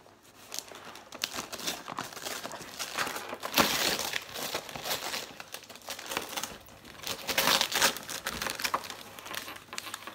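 Gift wrapping paper rustling and crinkling as a present is unwrapped by hand, with louder bursts of crinkling a little over a third of the way in and again past the middle.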